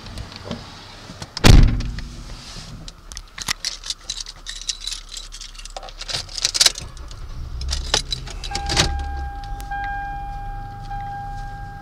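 A car door shuts with a knock, keys jangle and rattle in the ignition, then the 2008 Toyota Sienna's 3.5-litre V6 cranks, starts about eight seconds in and settles into a steady idle. A steady electronic warning chime sounds from the moment it starts.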